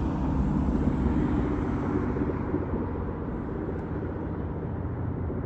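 Road traffic: a vehicle passing, its engine and tyre noise loudest at first and easing off about halfway through, over a steady low rumble.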